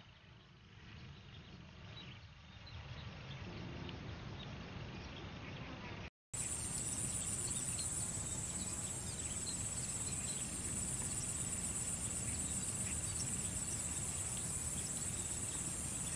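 Steady high-pitched chirring of insects over a low rumble, with a few faint short chirps; the audio drops out briefly about six seconds in, and the insect chirring is present from there on.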